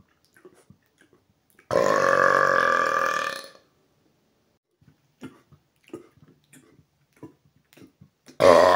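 A man's long, loud burps: one lasting nearly two seconds, starting about two seconds in and holding an even pitch, then another starting near the end and carrying on.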